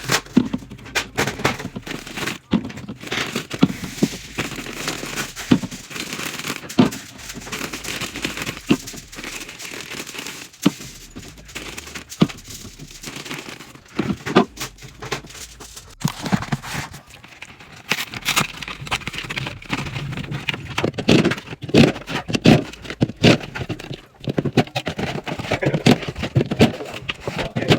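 Drinks fridge being restocked: a quick, dense run of clicks and knocks as soda cans and bottles are set onto the shelves, with plastic packaging crinkling and tearing.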